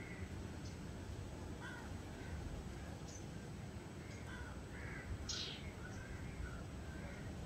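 Birds calling here and there in short separate calls, with one brief higher chirp about five seconds in, over a low steady background rumble.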